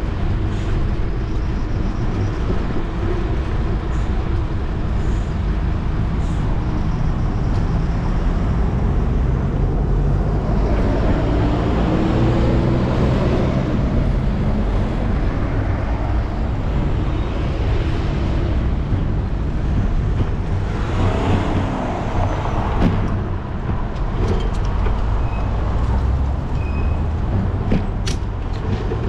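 Street traffic heard from a moving bicycle over a steady low rumble of wind on the microphone. Passing vehicles swell loudest about ten to fourteen seconds in and again around twenty-one seconds, and a few light clicks come near the end.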